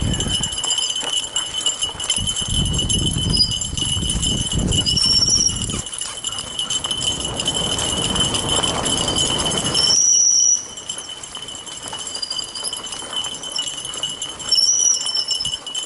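Fat bike riding down a dirt single-track behind a team of harnessed dogs: rumbling tyre and trail noise with jingling and rattling, the rumble dropping off about ten and a half seconds in. A steady high tone and short high chirps sound above it.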